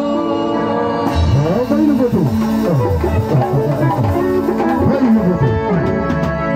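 Live band music with electric guitar and hand drums, and from about a second in a low bass part that slides up and down in pitch.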